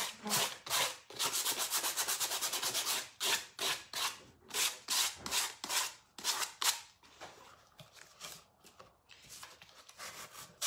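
220-grit sandpaper scuffing a painted shoe, softening the dried paint. It is rubbed in short back-and-forth strokes: a quick run about a second in, then slower strokes that turn faint after about seven seconds.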